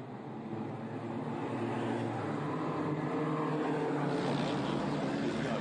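Engine of a pre-war racing car approaching, growing steadily louder and brighter as it nears.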